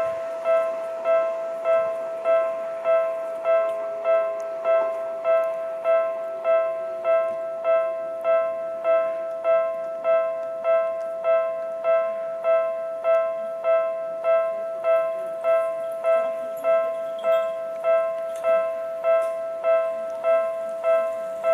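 Japanese railway level-crossing alarm ringing: a steady electronic ding on the same two-note chord, repeated about one and a half times a second, the warning that a train is approaching.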